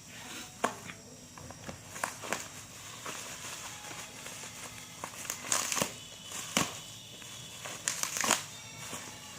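Packaging being handled and unwrapped: crinkling and rustling in irregular bursts with scattered clicks. The loudest bursts come about halfway through and again near the end.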